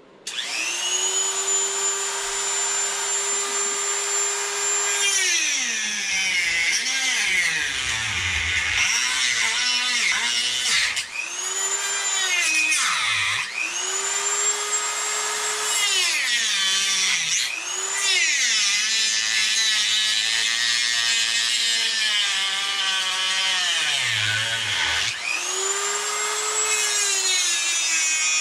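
Dremel rotary tool spinning up and trimming the plastic wall of an RC car's receiver box. Its high motor whine drops in pitch each time the bit bites into the plastic and climbs back when it eases off, many times over.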